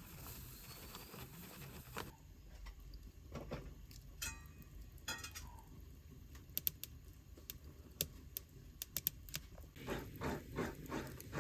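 A paper flour bag rustles briefly as flour is poured. Then a wood fire crackles, with scattered sharp pops that come thicker near the end.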